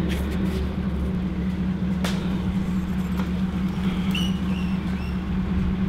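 Box truck's engine running steadily at low speed as the truck creeps along a rocky dirt trail, with a few sharp clicks over the engine's hum.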